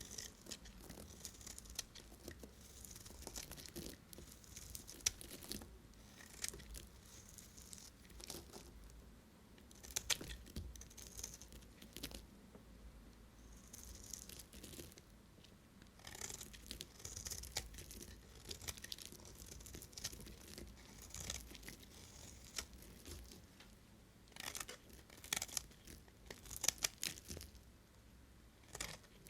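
A knife cutting into bars of soap: crisp crackling and scraping strokes in clusters, with sharp clicks, pausing between cuts.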